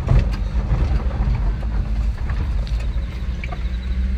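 Truck engine running while the truck drives slowly over a bumpy gravel track, heard from inside the cab: a steady low hum and rumble, with scattered rattles and knocks from the jolting cab.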